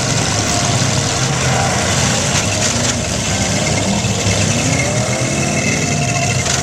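Demolition derby cars' engines running and revving together, with pitches rising and falling over a loud, steady mechanical din.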